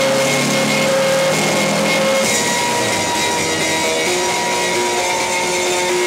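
Music with long held notes plays over a car's engine and road noise. The engine's low hum rises briefly at the start, then fades under the music about two seconds in.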